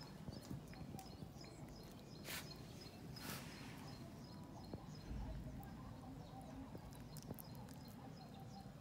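A dog playfully mouthing and nipping at a person's hand: faint scattered clicks and scuffles, with two short hissing puffs of breath a few seconds in and a soft thump near the middle.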